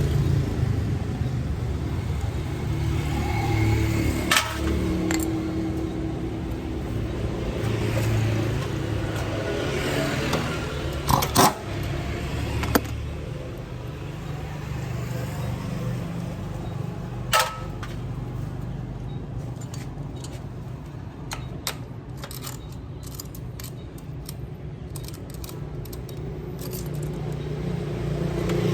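Metal parts and tools clinking and knocking, a few sharp strikes spread out and then a run of small ticks near the end, over a steady low rumble.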